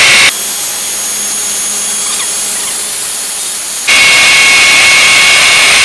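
Cordless brushless hammer drill boring a 1/2-inch masonry bit into a concrete block, running loud and continuously. Its sound changes about a third of a second in and changes back about four seconds in.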